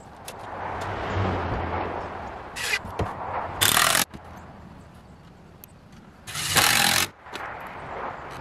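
A wooden trim board scraping against the wall boards in short rough bursts, three of them, as it is pushed and slid into position by hand. A vehicle passes in the first few seconds, swelling and fading.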